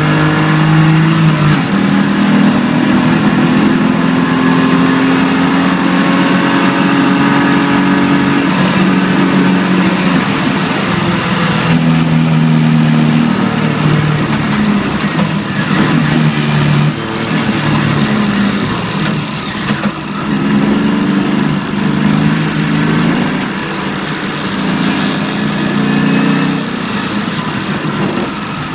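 BMW E46 325ti Compact's 2.5-litre straight-six heard from inside the cabin, driven hard, its note rising and dropping as the gears change, over a steady hiss of tyres on the wet track.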